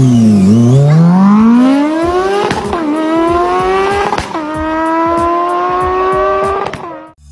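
A man imitating a motorbike engine with his voice and lips. The pitch climbs like an engine revving through the gears, drops sharply twice as if shifting up, and cuts off just before the end.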